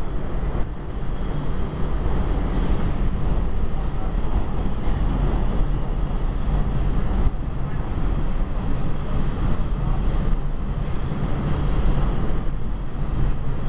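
Steady rumble inside an R142 subway car as the train runs through the tunnel: wheels on rail and undercar running noise, mostly low and heavy, with no let-up.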